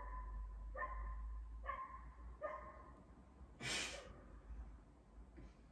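A dog barking faintly: four short barks a little under a second apart. A brief breathy rush of noise follows just under four seconds in.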